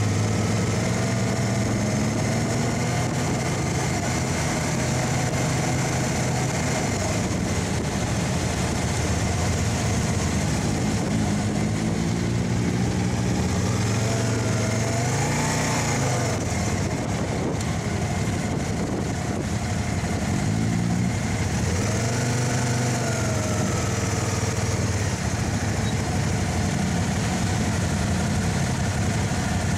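Motorcycle engines running at low speed in a slow-moving group, their pitch rising and falling several times as the throttle is opened and closed.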